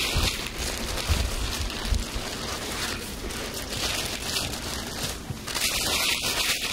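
Blue polyethylene tarp rustling and crackling as it is shaken out and spread by hand, in irregular rushes of crinkly plastic noise.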